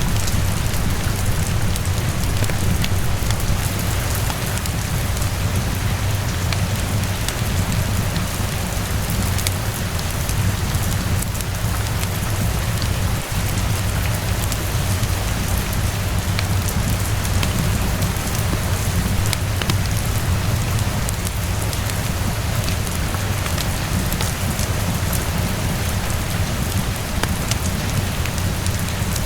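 Steady rain ambience mixed with a crackling fireplace: an even hiss of rainfall over a constant low rumble, with scattered faint ticks and pops.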